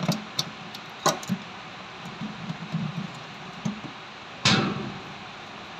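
A long-shafted screwdriver tightening the screw on a motor controller's battery-negative terminal: light clicks of the tool on the screw and terminal, with a louder knock about four and a half seconds in.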